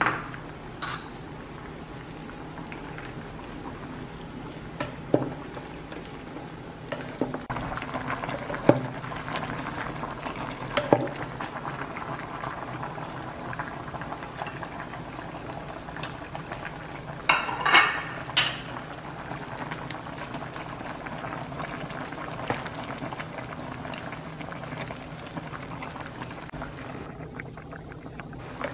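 Pot of beef soup boiling on a portable gas burner, a steady bubbling. A few sharp clinks and knocks from the pot, with a cluster of them about two-thirds of the way through.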